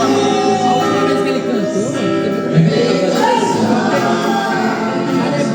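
Church worship music: voices singing over long held instrumental chords.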